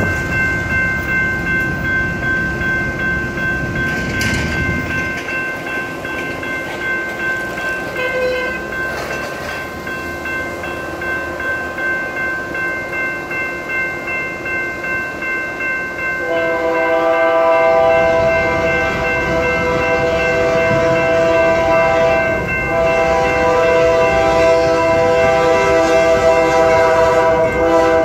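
Grade-crossing warning bell ringing steadily at about two strikes a second. About sixteen seconds in, the multi-note air horn of the approaching Union Pacific diesel locomotive sounds in long blasts with a short break, over the rising rumble of the train.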